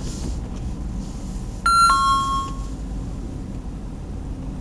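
A two-note electronic chime, a higher ding then a lower dong, about a second and a half in, over the steady low rumble of a vehicle cabin on the move.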